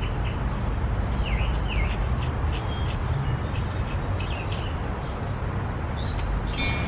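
Outdoor ambience: a steady low rumble with small birds chirping over it, and faint crisp ticks of a knife slicing through okra pods. A wind chime starts to ring near the end.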